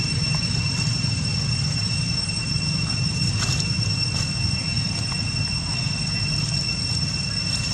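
Insects droning in one steady high-pitched tone over a low rumble, with a few faint clicks.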